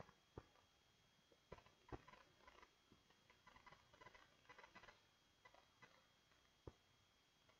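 Faint clicking of a computer mouse and keyboard at a desk: a few sharper single clicks spread through, and a quick run of small clicks around the middle.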